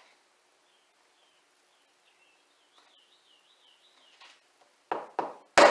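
A faint high warbling chirp, then near the end three sharp knocks in quick succession, the last the loudest.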